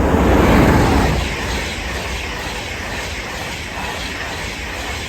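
A train passing the platform, a loud rush of noise peaking about half a second in, then a steady rumble.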